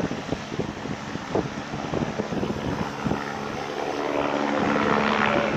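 Eurocopter AS350 A-Star tour helicopter taking off and flying closer. Its rotor thumps repeatedly at first, then a steady turbine hum and whine grows louder from about halfway as it comes overhead.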